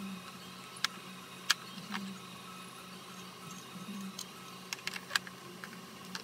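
Scattered sharp clicks and light knocks as an antique Reeves watercolour box is handled: its wooden case and lid, and ceramic palette pieces, tapping and clinking against each other. There is a steady low hum underneath, with a quick cluster of clicks about five seconds in.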